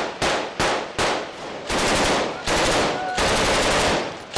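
Rifles fired into the air, first in quick single shots a few times a second, then, from about a second and a half in, in long unbroken bursts of automatic fire.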